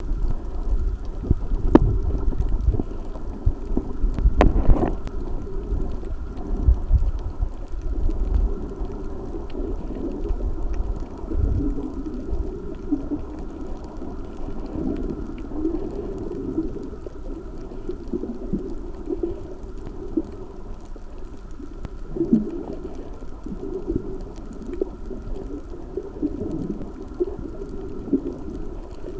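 Muffled underwater sound heard from a camera held below the surface: a low, wavering rumble and swish of water, with a few dull knocks in the first dozen seconds.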